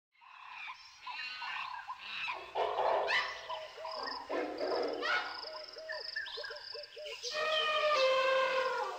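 A jungle-like chorus of animal and bird calls: chirps, quick rising whoops and rapid chattering notes, with a long wavering call held from about seven seconds in.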